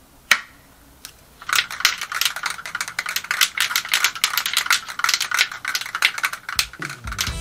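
A sharp click as a pistol-grip trigger handle snaps onto an aerosol spray paint can, then the can is shaken, its mixing ball rattling rapidly for about five seconds. Music comes in near the end.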